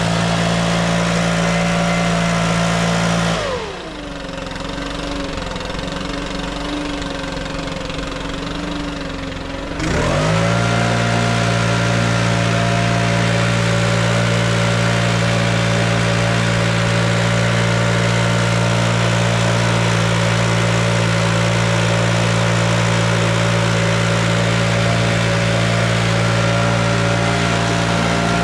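Small engine running at a steady high speed. About three and a half seconds in it is throttled down to a low idle, and about ten seconds in it speeds back up to full speed and holds there.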